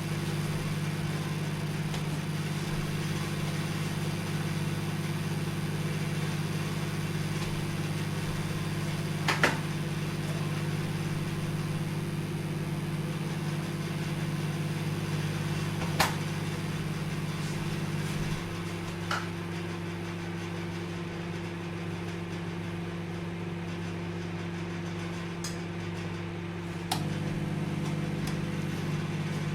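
Microwave oven running with a steady hum and whir. A few sharp clicks come through, and about two-thirds through the hum thins and drops a little, then comes back fuller with a click near the end.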